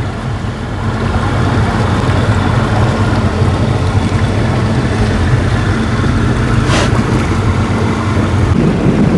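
A steady low motor hum, with a brief sharp click about seven seconds in; near the end the hum gives way to a rougher, noisier rumble.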